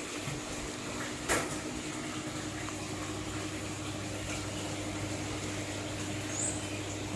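Steady water noise from the fish tank with a low hum running under it, and one sharp knock just over a second in.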